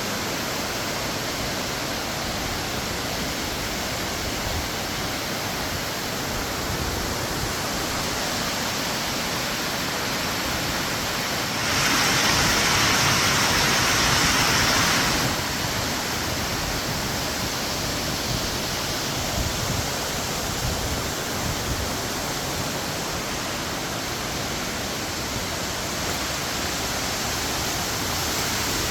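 Waterfall rushing, a steady full hiss of falling water, growing louder and brighter for about three seconds about twelve seconds in.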